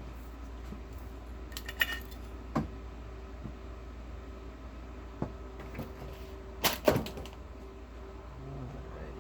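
Metal tools and parts clinking and knocking as they are handled and set down: a few separate sharp clinks, the loudest cluster about seven seconds in, over a steady low hum.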